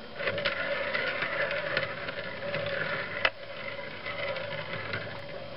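G-scale model wheelset of two sheet-metal wheels on an axle rolling along metal strip rails on wooden ties: a continuous metallic rolling rattle with a steady ringing hum, and a sharp click about three seconds in.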